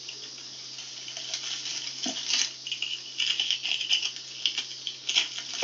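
Dirt and gravel of a creek bank being scraped and picked at to free a buried stone point: an irregular run of small gritty scrapes and clicks.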